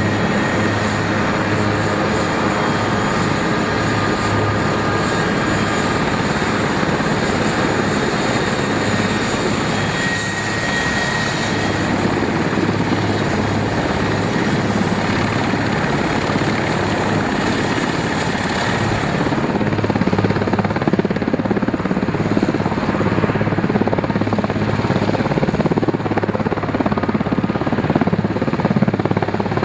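Denel Rooivalk twin-turboshaft attack helicopter running on the ground: a dense, steady rotor and engine noise with a thin high turbine whine. The whine stops about twenty seconds in, and after that the rotor noise grows louder.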